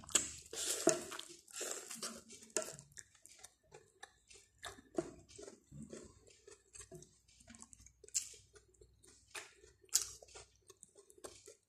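A person biting kernels off a boiled corn cob and chewing them, with irregular short crunches and mouth clicks.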